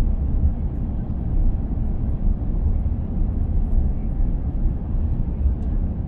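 Cabin noise of an Airbus A350 on its takeoff roll: the Rolls-Royce Trent XWB engines running at takeoff thrust while the landing gear rumbles over the runway, heard from a window seat as a steady low rumble.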